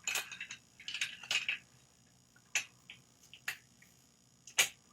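Handling noises from fitting parts to a new angle grinder: bursts of rustling and small clicks in the first second and a half, then a few separate sharp clicks, the loudest near the end.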